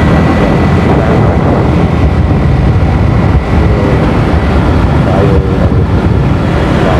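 Motorcycle riding at speed: steady rush of wind on the microphone over the running engine, with a faint steady whine that fades out about halfway through.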